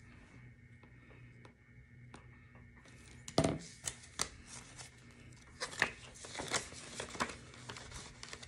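Paper and plastic rustling with scattered clicks as a ring binder's pages and cash envelopes are handled and turned. Quiet for the first few seconds, then a thump about three and a half seconds in, followed by rustles and clicks.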